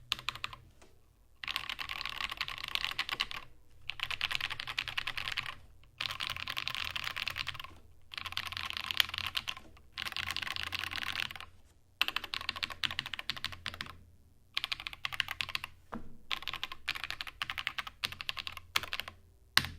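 Fast typing on an XD75re ortholinear mechanical keyboard with Holy Panda tactile switches lubed with Krytox 205g0 and SA keycaps, in an aluminum case with a tempered glass bottom that gives a muted, thocky sound. The keystrokes come in quick runs of about two seconds with short pauses between, and one sharper, louder keystroke near the end.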